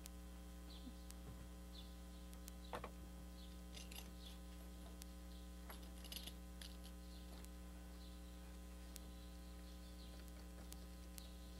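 Steady low electrical mains hum, with a few faint scattered clicks from handling the tools and screen.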